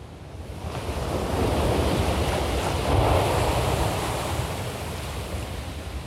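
Rough sea: surf rolling in and breaking, with wind. The rush swells about a second in, is loudest around three seconds in, then slowly ebbs.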